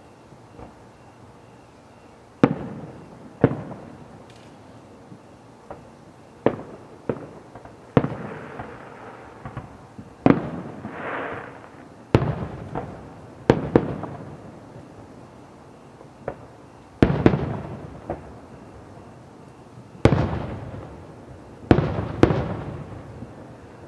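Aerial fireworks bursting overhead at irregular intervals, more than a dozen sharp booms, each trailing off in an echo. A longer rushing burst comes about halfway through, and the bangs bunch together again near the end.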